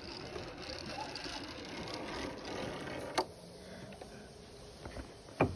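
Clothing rubbing against a chest-worn phone's microphone as the wearer moves along the ropes course, with a sharp click about three seconds in and a heavier thump near the end.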